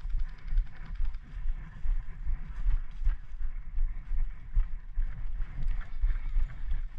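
Footsteps and gear rustling from a player on the move, with wind buffeting the microphone in irregular low thumps.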